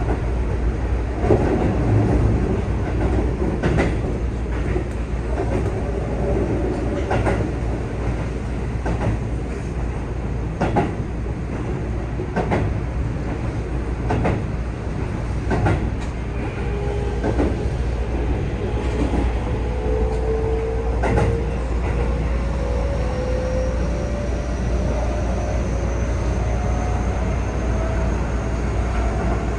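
Keihan 3000 series electric train running, heard from the driver's cab: a steady rumble with a clack from the rail joints about once a second. From about halfway through, the Toyo IGBT-VVVF traction inverter and motors add a whine that rises slowly in pitch as the train picks up speed under power.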